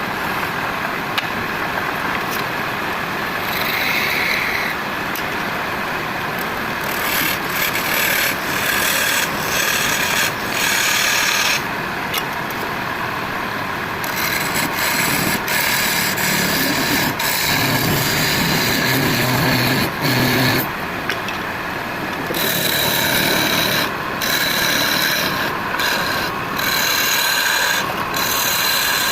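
Wood lathe turning a workpiece while something held against the spinning wood rasps and scrapes it. The scraping is continuous, with its hiss coming and going every few seconds.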